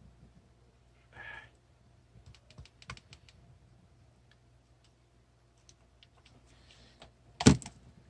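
Small irregular clicks and taps from handling a tiny plastic drone while its camera is tilted down, with one louder sharp knock near the end.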